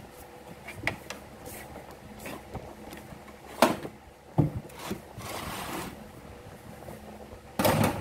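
Handling noise from the plastic casing of a Mondial Premium NPF-51 bread maker: a few sharp knocks and a brief scraping rub as hands move over and shift the machine, with a louder rustle near the end. A faint steady hum runs underneath.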